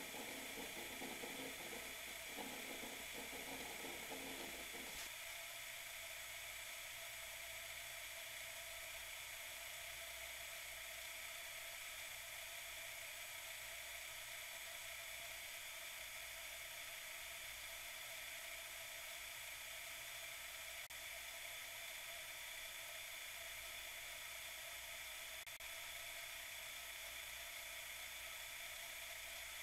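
Kerosene heater burning during its warm-up just after lighting on a fresh wick: a faint, steady hiss, with a rougher lower noise in the first few seconds that drops away.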